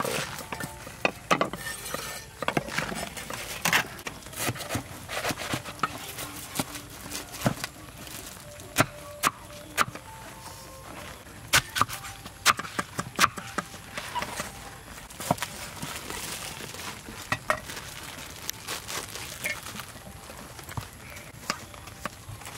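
Irregular sharp clicks, knocks and clinks of hand food preparation with kitchen utensils and dishes.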